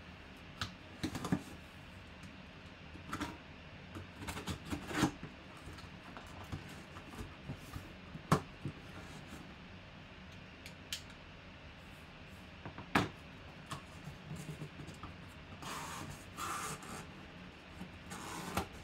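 Cardboard box being slit open with a knife and handled: scattered scrapes, taps and clicks of blade and cardboard, with longer rustling near the end as the flaps are pulled open.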